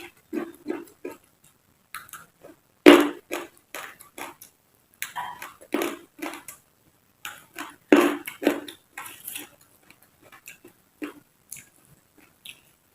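Close-up chewing and biting of raw vegetables (lalapan) in irregular crunchy mouthfuls, with two louder bites about three seconds in and again near eight seconds.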